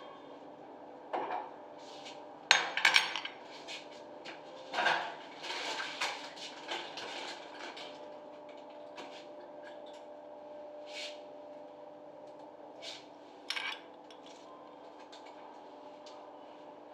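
Metal tools clinking and scraping against the brass cartridges of a concealed shower valve, with a cluster of sharp clanks a few seconds in, more clatter shortly after, then only occasional light ticks. A faint steady hum runs underneath.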